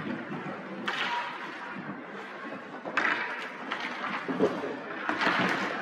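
Ice hockey rink sounds during play: skates scraping the ice under a few sharp knocks of sticks and puck, about a second in and again about three seconds in, with faint voices.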